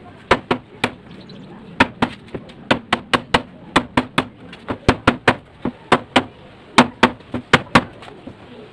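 Hammer blows on a wooden chair frame, knocking the rails down onto the legs' mortise-and-tenon joints: a quick, irregular run of sharp knocks, about three a second, stopping near the end.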